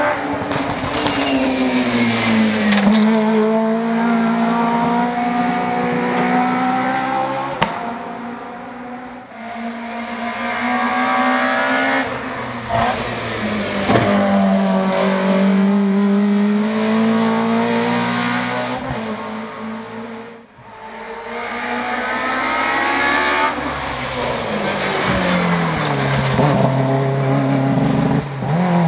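Three tuned hatchback race cars accelerating hard up a hillclimb course one after another. Each engine revs high and shifts up as the car comes near and fades away, with a couple of sharp pops along the way.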